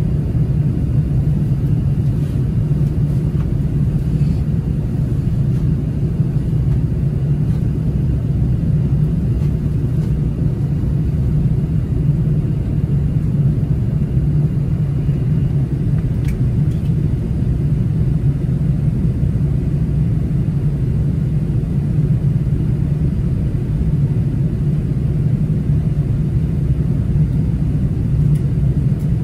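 Steady low drone inside the cabin of an Airbus A380-800 in its initial climb after takeoff, the Engine Alliance GP7200 engines at climb power together with airflow noise over the fuselage.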